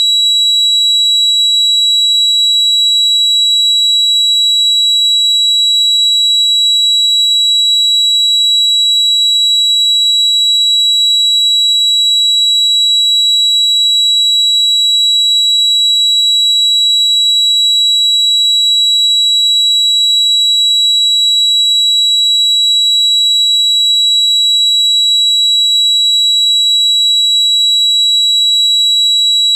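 Synthesized tinnitus sound effect: a single steady, high-pitched ringing tone over a faint hiss, unbroken and unchanging.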